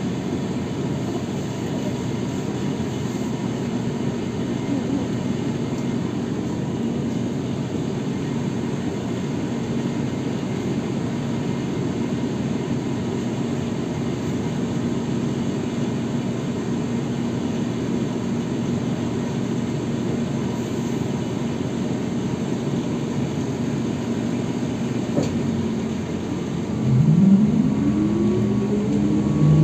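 Inside a ZiU-682B trolleybus standing in traffic: a steady electrical hum and rumble. Near the end there is a click, and then the traction motor's whine rises in pitch as the trolleybus pulls away.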